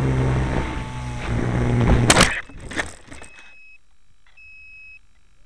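Electric Acromaster RC plane's motor and propeller running with wind rush, cut off by a hard crash into stony ground about two seconds in, a poor landing that the uploader puts down to the power running out. A brief clatter follows as it tumbles. Then high electronic beeps from the grounded model, each about half a second long, roughly once a second.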